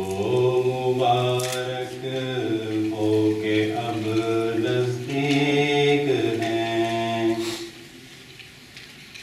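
A man's solo voice singing a line of an Urdu nazm, unaccompanied, in long drawn-out melodic notes that rise and fall slowly. The singing breaks off about seven and a half seconds in.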